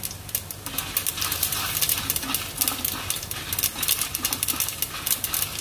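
Coriander seeds, chana dal and dried red chillies roasting in a teaspoon of oil in a small pan, with many small crackles and ticks as they are stirred and turned.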